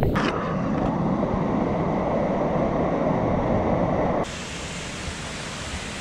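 Waterfall water pouring down close by, a loud, dense, steady rush of falling and churning water. About four seconds in it cuts off abruptly to a quieter, thinner, even hiss.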